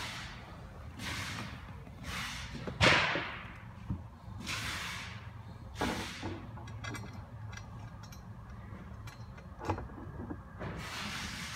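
Rustling and scraping swishes as the chair's footrest is handled and fitted by hand, with a sharp knock about three seconds in and lighter clicks later.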